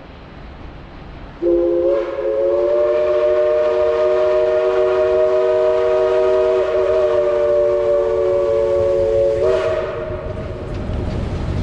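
Southern Railway 4501 steam locomotive's chime whistle blowing one long blast of about eight seconds, a steady chord of three notes sounding together, starting about a second and a half in and tailing off near the end. A low rumble of the approaching train runs under it.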